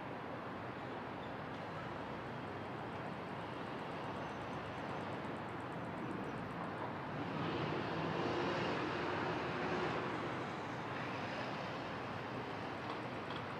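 City street ambience: a steady wash of distant traffic, with one vehicle passing and rising in level for a few seconds around the middle before fading back.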